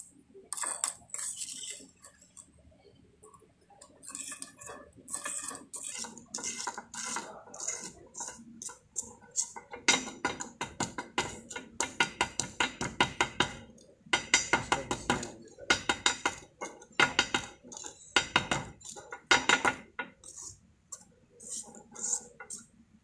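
Steel spatula scraping and tapping against a small metal cup as wet soil paste is pressed into it to leave no air voids, filling the cup for a cone-penetrometer liquid limit test. Scattered clinks and scrapes at first, then a quick run of clicks and taps from about ten seconds in.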